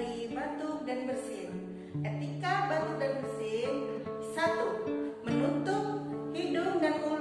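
Background music led by a plucked acoustic guitar, with a steady bass line.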